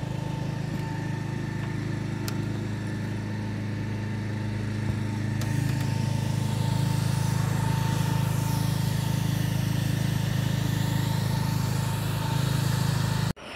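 A motor running steadily with a continuous low hum, cutting off suddenly near the end.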